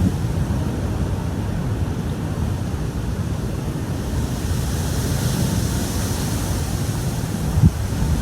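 Wind buffeting the microphone: a steady low rumble, with a faint hiss that swells and fades in the middle and a brief thump near the end.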